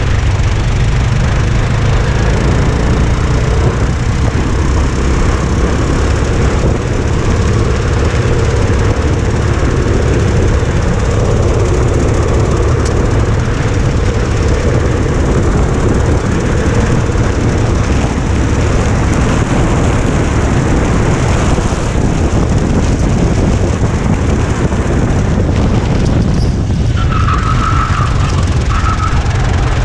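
Racing go-kart engine running at speed, heard from the kart itself with heavy wind rumble on the microphone throughout. Near the end, a brief tyre squeal as the kart corners.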